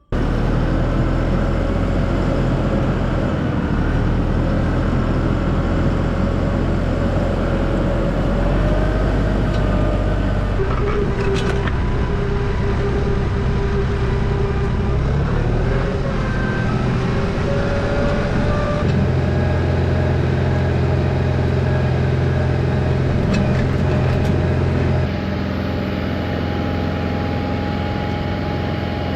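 Tractor engine running steadily while clearing snow with a back blade, a constant drone with a wavering higher tone over it. Its pitch and level shift abruptly a few times.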